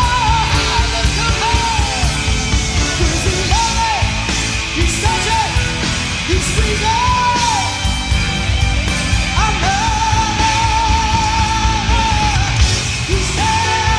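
Rock song playing: a loud sung vocal line with long held notes over guitars, bass and steady drums.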